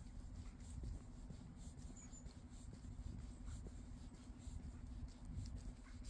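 Faint low rumble and steady hum of a Volvo estate car's engine idling, with light scratching handling noise on the microphone.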